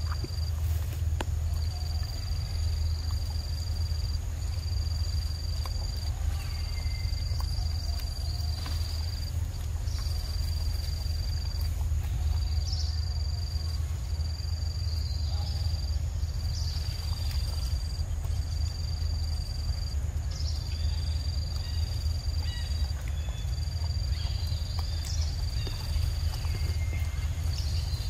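Outdoor ambience: an insect's high, thin buzz repeating in stretches of a second or two with short breaks, over a steady low rumble, with faint small clicks of a macaque eating soft fruit.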